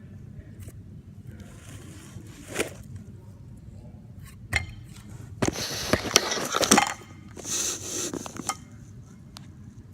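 Slime being squeezed and worked by hand, giving wet crackling and popping: a couple of single pops, then two longer crackling bursts past the middle.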